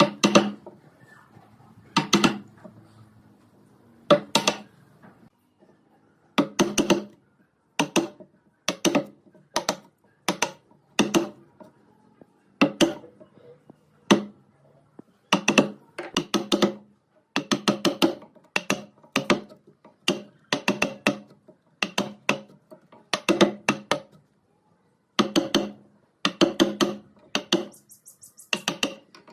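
Repeated hammer blows on wood, coming singly or in quick groups of two to four at uneven gaps, each knock with a short pitched ring.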